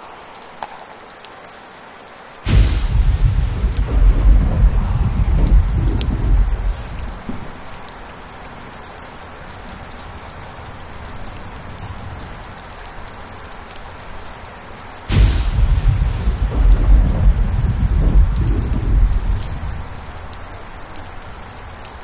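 Heavy rain falling steadily, with two claps of thunder. The first comes about two and a half seconds in and the second about fifteen seconds in; each is a sudden crack followed by several seconds of low rumbling that slowly dies away.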